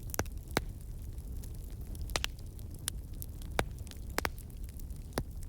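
Wood fire crackling in a fireplace: irregular sharp pops and snaps, about ten in a few seconds, over a steady low rumble.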